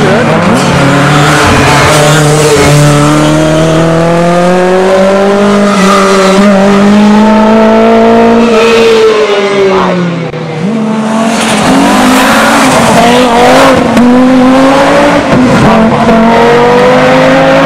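Audi Sport quattro S1 rally car's turbocharged five-cylinder engine running hard under full throttle, its pitch climbing for several seconds. About ten seconds in the revs fall away and the engine briefly quietens as the driver lifts off. It then pulls again with rising, wavering revs.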